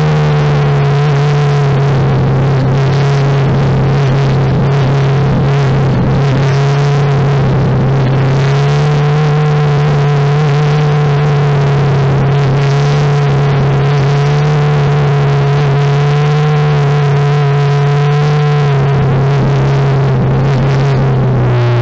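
Onboard sound of a Formula 4 car's turbocharged 1.6-litre Ford four-cylinder engine held at steady revs in second gear, a constant engine note with only slight wavers in pitch.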